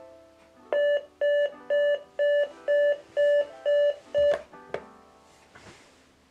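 Digital alarm clock beeping: eight short, even beeps about two a second, cut off after about four seconds when a hand slaps the clock. Soft background music plays underneath.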